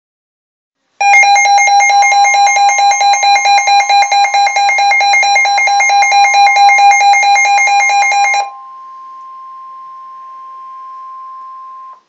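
Emergency weather alert tones: a loud, rapidly warbling electronic alarm with a steady tone under it starts about a second in and cuts off after about seven seconds. A single steady, quieter warning tone, the NOAA Weather Radio warning alert tone, carries on after it.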